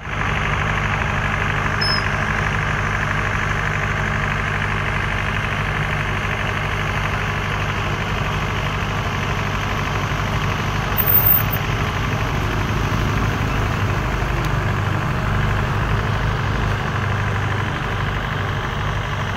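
An engine running steadily at idle with an even low hum, with a short louder sound about eleven seconds in.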